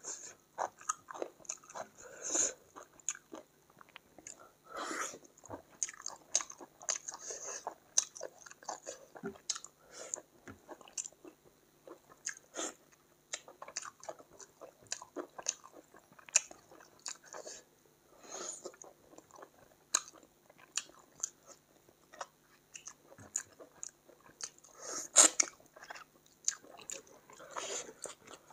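Close-miked eating of chicken curry with rice: steady chewing with many quick wet mouth clicks, lip smacks and small crunches.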